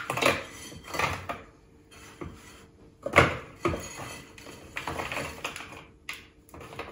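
Hard biscuits (speculoos and digestives) tumbling off a plate into a food-processor bowl: a series of irregular clatters and knocks, the loudest about three seconds in.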